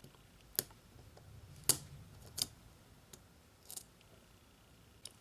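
A handful of faint, sharp clicks and ticks from small repair tools and parts being handled inside an opened iPhone 5s, spaced irregularly about half a second to a second apart.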